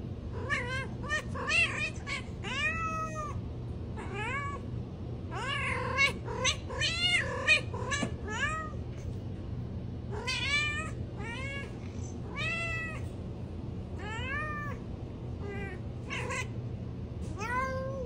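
Tabby cat giving many short meows in runs of several, each call rising then falling in pitch, with brief pauses between the runs.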